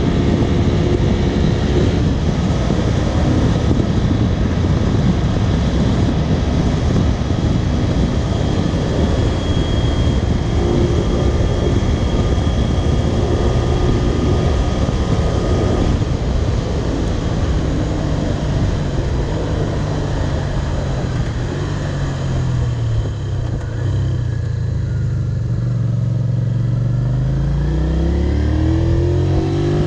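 Honda VTR250 V-twin motorcycle engine running under way, heard with heavy wind rush for the first half. In the second half the engine's pitch falls as the bike slows, then climbs again near the end as it accelerates.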